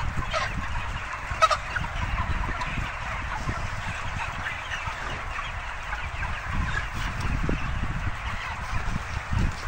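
A large flock of five-week-old broiler chickens in a poultry house making a constant chorus of overlapping soft clucks and chirps, with a low rumble underneath.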